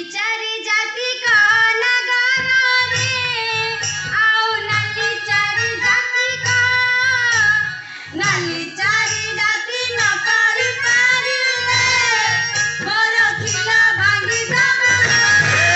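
A high voice singing a wavering melody over a repeating low rhythmic beat, with a brief break in the singing about eight seconds in.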